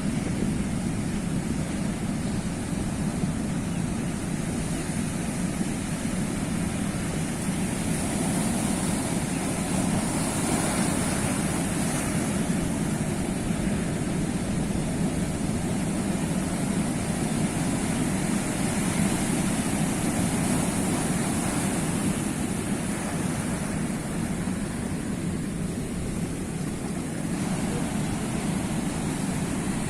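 Sea waves washing on the shore in a continuous rushing noise, swelling a little twice.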